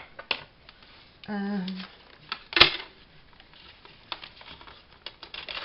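Paper and a clear plastic ruler being handled on a craft mat: light rustles and scattered taps, with one sharp knock about two and a half seconds in.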